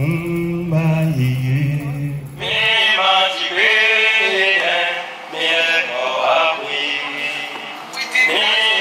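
A man's voice chanting in a low, slowly moving tone. About two and a half seconds in it changes abruptly to a brighter, livelier chanting voice through a handheld microphone.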